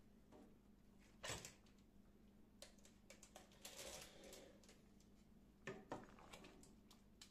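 Near silence, broken by a few soft knocks and clicks, the loudest about a second in. Near the end a wooden spoon knocks against the soup pot twice as the soup is stirred.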